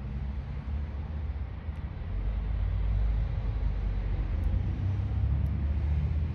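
Low, steady engine rumble of a vehicle nearby, growing louder about two seconds in.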